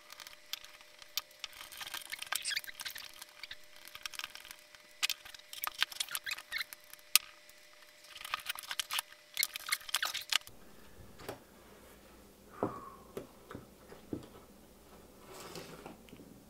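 Clicks, scrapes and light rattles of small plastic and metal parts being handled as a cordless caulking gun is taken apart and its motor and gearbox are lifted out of the housing. Busy handling noise for about the first ten seconds, then sparser single clicks.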